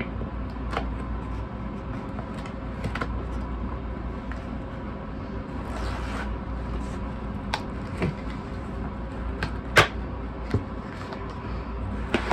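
Small knife slicing and scraping along the tape and seams of a cardboard record mailer, with scattered scrapes and clicks of the cardboard and one sharper click late on. A steady low hum lies underneath.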